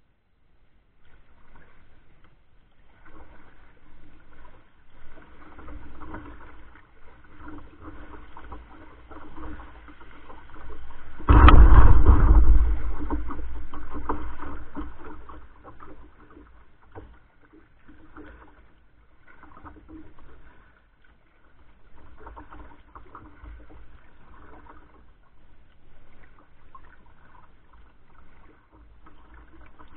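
Kayak paddle strokes splashing and dripping in creek water, about once a second. About eleven seconds in, a sudden, much louder rush of noise lasts around three seconds.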